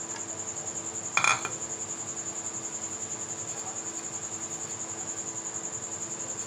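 A cricket chirping in a fast, steady high-pitched trill over a faint steady hum, with a single sharp clink about a second in.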